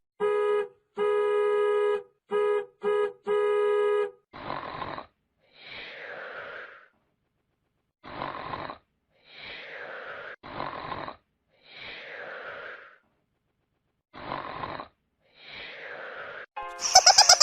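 Comic snoring sound effect: a regular cycle of noisy snore and whistling out-breath repeating about every two seconds. Before it come a few short buzzy honks on one steady pitch.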